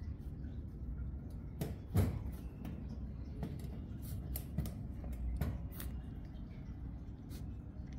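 A wire pet cage clicking and rattling as a long-haired cat inside paws at the bars: a scattering of light sharp clicks, the loudest about two seconds in, over a low steady background rumble.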